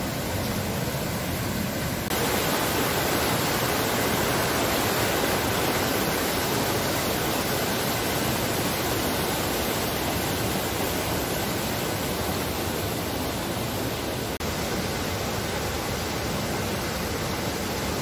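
Steady rushing roar of a waterfall, stepping up in loudness about two seconds in.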